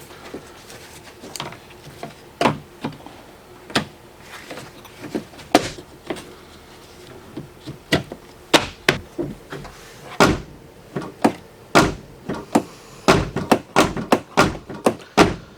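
A truck door and its handle being worked: a long run of sharp clacks and thunks, coming faster in the last few seconds and cutting off abruptly.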